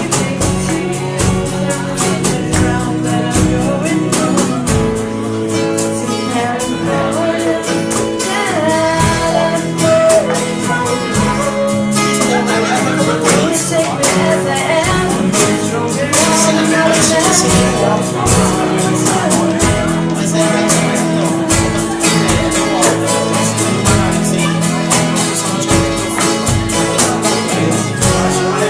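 Acoustic band playing a song live: two acoustic guitars and percussion keeping a steady beat, with two voices singing.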